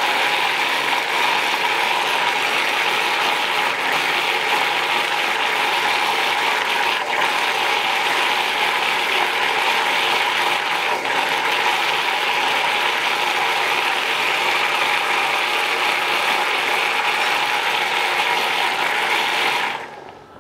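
A kitchen machine running steadily with a loud, even grinding whirr, switched off abruptly near the end.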